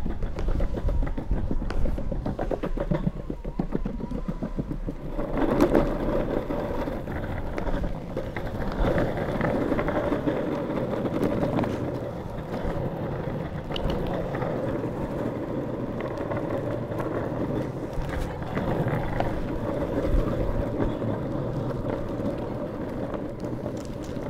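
Drop-through longboard's wheels rolling along the ground, a steady rumble with rapid clicks over paving-slab joints in the first few seconds, then a louder, smoother rumble on the road surface.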